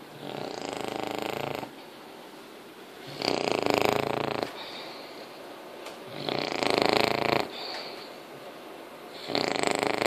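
English bulldog puppy, five months old, snoring in its sleep: four long snores about three seconds apart, each lasting over a second, with quieter breathing between them.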